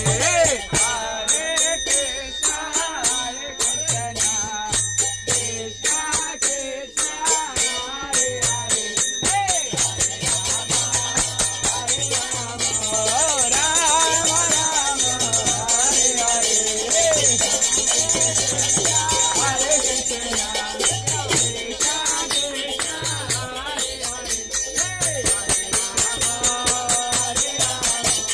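Kirtan: small brass hand cymbals (kartals) struck in a steady rhythm, with hand clapping and group singing over a pulsing low beat.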